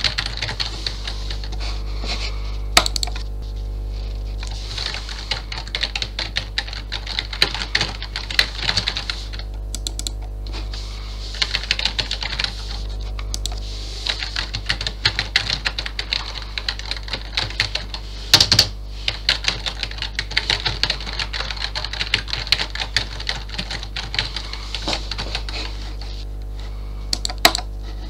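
Fast typing on a computer keyboard: a rapid clatter of key presses in bursts with short pauses, and a couple of louder key strikes. A steady low hum runs underneath.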